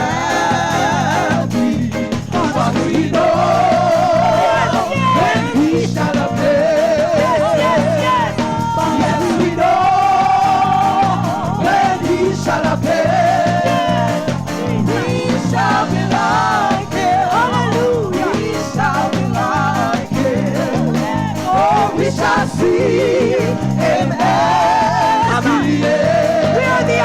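Live gospel worship music: a church band playing a steady bass line and beat under a wavering melody line with heavy vibrato.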